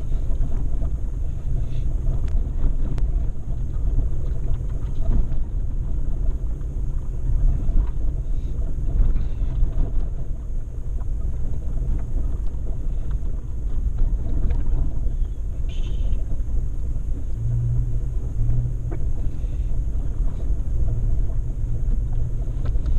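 Off-road vehicle driving on a dirt mountain road: a steady low rumble of engine and tyres, with wind buffeting the action camera's microphone.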